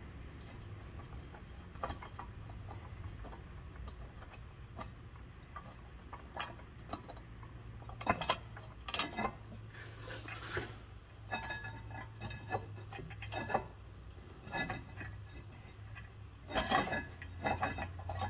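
Ratchet wrench clicking and steel tools clinking while the rear caliper bracket bolts are worked loose, with short clusters of clicks and a few brief metallic rings, over a steady low hum.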